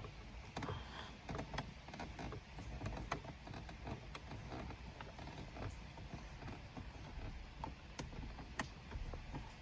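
Faint scattered clicks and light scrapes of a screwdriver working a Torx T15 screw loose behind car dashboard trim, roughly one click a second, over a low steady hum.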